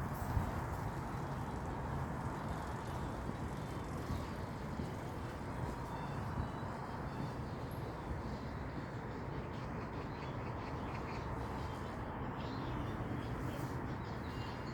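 Steady low outdoor background noise with no distinct events.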